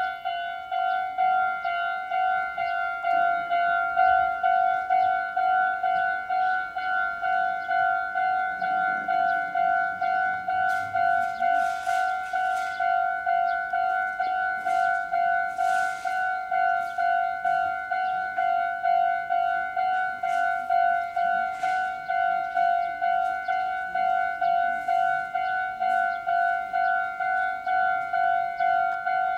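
Japanese railway level-crossing alarm ringing its electronic 'kan-kan' tone in a steady, even repeating rhythm, the signal that the crossing is active and a train is approaching.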